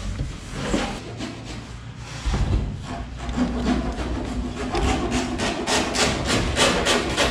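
A power drill boring through a PVC ceiling panel into steel furring, then a hand rivet gun set to work near the end in a quick run of scraping strokes.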